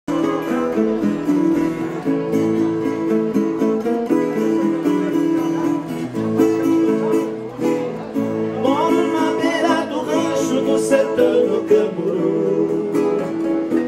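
Music: a plucked acoustic guitar playing a country-style tune.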